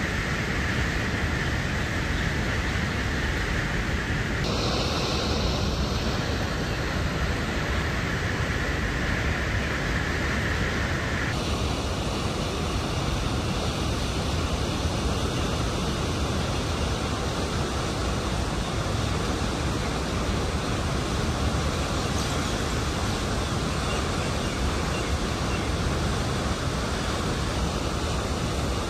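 Heavy water rushing through an opened dam gate, a steady unbroken roar of turbulent flow. Its character changes abruptly about four seconds in and again about eleven seconds in.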